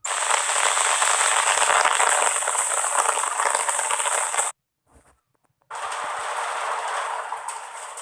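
A dense, crackling hiss that cuts off suddenly about four and a half seconds in and starts again about a second later.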